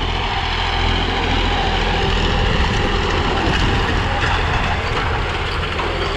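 Massey Ferguson 9500 tractor's diesel engine running steadily under load while it pulls a disc harrow through dry soil, passing close by.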